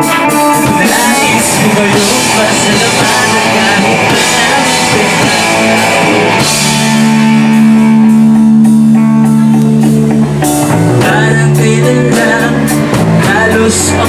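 Live rock band playing, with electric guitars, drum kit and a male lead singer. About six and a half seconds in, the band holds one chord for a few seconds with the cymbals dropping out, then the drums pick up again.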